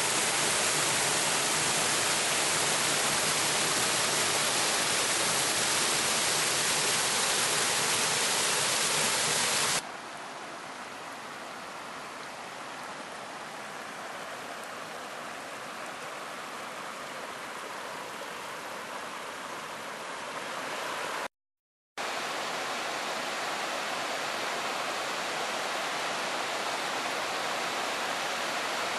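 Water rushing and splashing as a shallow river pours over bare rock into a pothole, a loud steady noise. About ten seconds in it cuts abruptly to a quieter, softer rush of flowing water, broken by a brief dropout to silence a little past twenty seconds.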